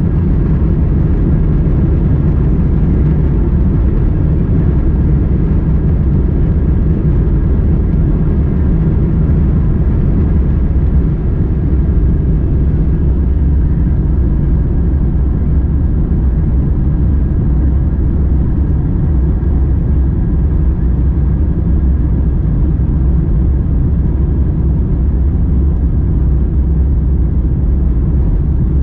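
Airbus A350-1000's Rolls-Royce Trent XWB-97 turbofans at takeoff thrust, heard inside the cabin. A loud, steady deep engine and airflow noise with a faint high whine through the takeoff roll and climb-out.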